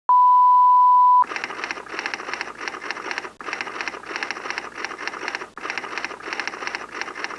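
A loud steady beep lasting about a second, then rapid typewriter key clatter in runs of about two seconds with short breaks between them: a typewriter sound effect.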